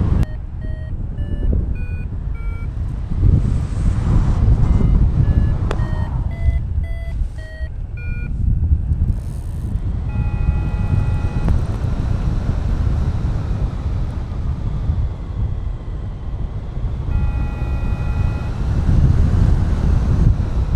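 Wind rushing over an action camera's microphone in flight, with a paragliding variometer beeping over it: a run of short beeps stepping up and down in pitch for the first eight seconds, the vario's climb signal, then two long steady tones about ten and seventeen seconds in.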